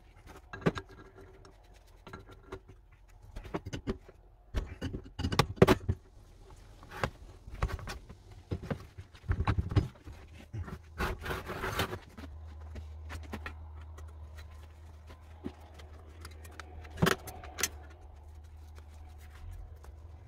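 Irregular metallic clinks, taps and scrapes of hand tools working on the small nuts and bolts of an old cast bench grinder during its strip-down. A steady low hum comes in about twelve seconds in.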